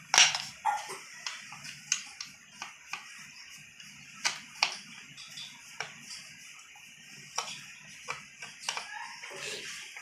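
Screwdriver driving the screws into a ceiling fan motor's metal cover plate: irregular small metallic clicks and taps, the loudest at the very start.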